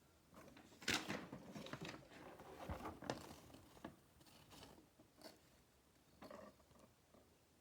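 Paper pages of an instruction manual being turned and handled: a run of crisp rustles, loudest about a second in, thinning out to a few faint ones later.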